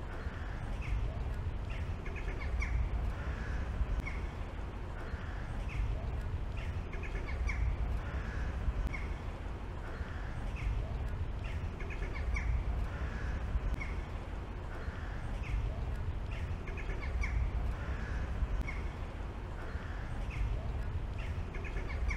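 Crow-like bird calls repeating about once a second over a steady low rumble.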